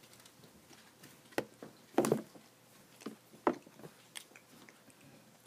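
A child chewing food, with a handful of separate sharp crunches; the loudest comes about two seconds in.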